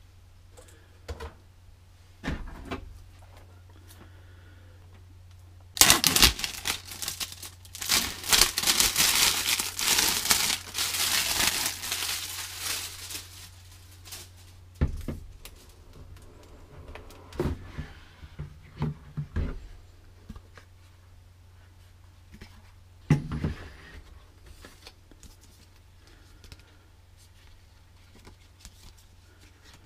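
Plastic wrapping torn and crumpled off a cardboard product box, a loud crinkling stretch of about eight seconds, followed by the box being handled and opened, with scattered knocks and paper-card rustling. A faint steady low hum runs underneath.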